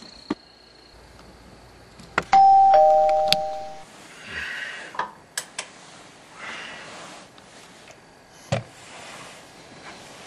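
Two-note ding-dong doorbell chime, a higher note then a lower one, ringing out and fading about two seconds in.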